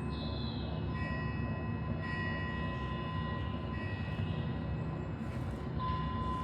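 Metal chimes ringing with long sustained tones that overlap and fade over a steady low rumbling noise bed.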